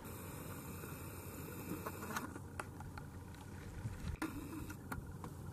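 Faint steady background noise with a few soft clicks and taps.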